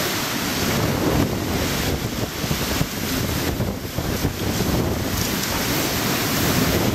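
Typhoon eyewall winds blowing in strong gusts with wind-driven rain, buffeting the microphone; the noise surges and eases every second or so.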